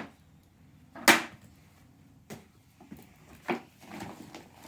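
A few short, sharp knocks and clicks of something being handled, the loudest about a second in and two lighter ones later.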